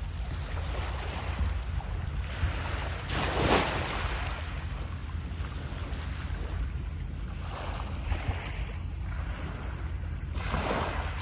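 Small waves washing onto the shore in swells a few seconds apart, the loudest about three and a half seconds in and another near the end, over a steady rumble of wind on the microphone.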